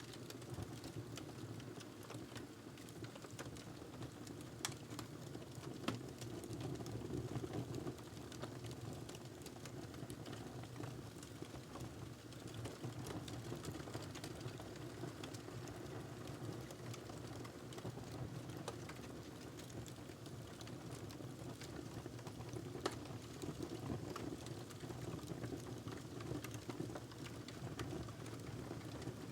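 Wood fire crackling in a fireplace: a steady low rush of burning with scattered sharp pops and snaps, a few of them louder.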